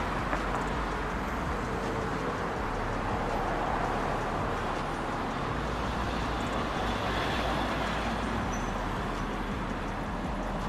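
Steady background noise of road traffic, with a constant low rumble.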